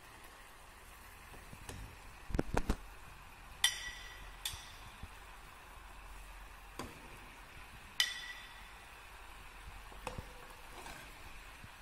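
Stainless steel ladle stirring a simmering curry in a metal pan and clinking against the pan's side. There are two bright ringing clinks about four seconds apart, with duller knocks and lighter taps between them.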